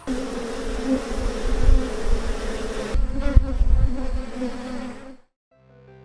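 Honeybees buzzing at a hive entrance, a steady drone with a low rumble underneath. It cuts off about five seconds in, and soft music begins just before the end.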